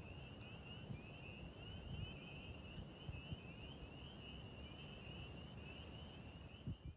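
Faint, steady chorus of rapid high chirps from small creatures in the field, over a low rumble.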